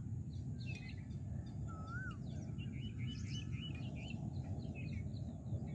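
Birds chirping and calling over a steady low rumble of outdoor background noise: a short up-and-down whistled note about two seconds in, and a quick run of repeated chirps around the middle.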